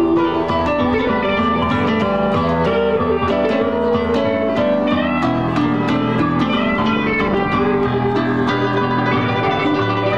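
Live band playing an instrumental rock passage: electronic keyboard with a piano sound and guitar, many quick notes over a steady beat.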